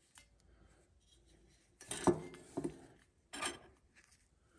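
Brass burner and metal wick-holder parts of an Aladdin oil lamp being handled: light metallic clinks and rubbing, with a short clatter about two seconds in and another about a second later.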